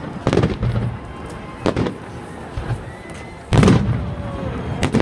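Fireworks salute: aerial shells bursting overhead with deep booms, four in turn, the loudest about three and a half seconds in.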